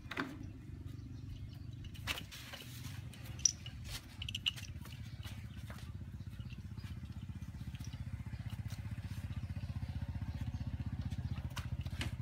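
A small engine running steadily with a fast low putter, growing a little louder in the second half, with a few sharp clicks and knocks in the first few seconds.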